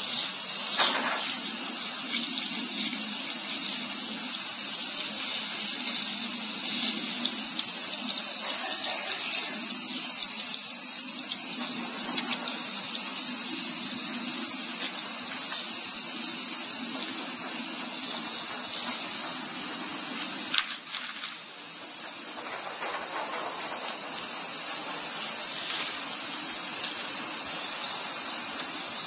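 Garden hose water spraying and splashing over a tanuki's fur and onto the gravel, over a steady high-pitched insect drone. The splashing drops suddenly about two-thirds of the way through.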